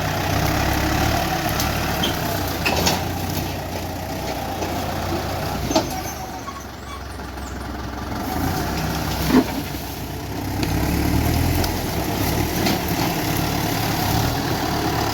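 Heavy vehicle engine running steadily, easing off briefly about halfway through. Two sharp knocks stand out, one about six seconds in and one about nine seconds in.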